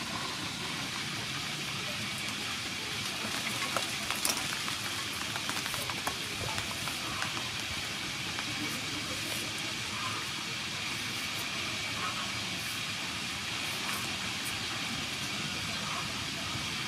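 A julienne peeler shredding a cucumber into strips, heard as light scattered scrapes and clicks over a steady background hiss.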